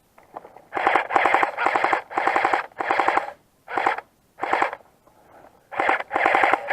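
Airsoft gun firing on full auto in a series of short bursts, a rapid clatter of shots. About eight bursts start under a second in, with a brief pause a little after the middle.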